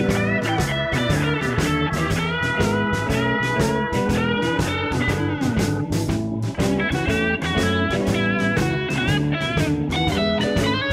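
Background music: an electric-guitar-led instrumental with a steady beat.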